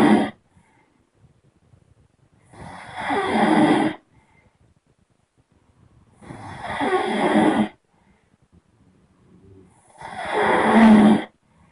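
A person snoring: the end of one snore, then three long snores about every four seconds, each swelling louder and cutting off sharply.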